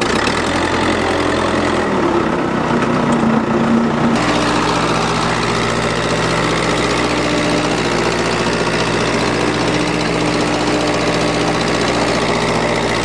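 Tractor engine running steadily and loud. Its note changes abruptly about four seconds in, then holds steady.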